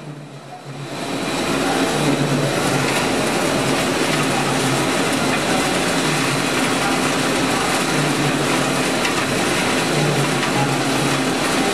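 Steady machinery noise of a wood-chip biomass boiler plant: a dense, even rush with a low hum that comes and goes every couple of seconds. It fades in over the first second or two.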